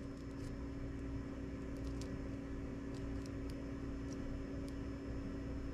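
A steady low machine hum with a few faint light clicks, as a servo wire's crimped pin is worked into its small plastic connector housing.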